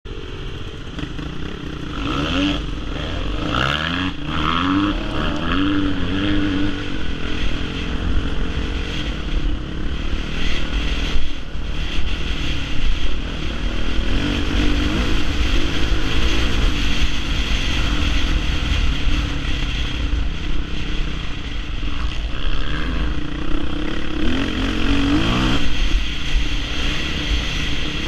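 Dirt bike engine heard from the rider's helmet camera, revving and rising in pitch through several gear changes as it pulls away about two seconds in, then running steadily along the track and revving up again near the end, over a constant low rumble.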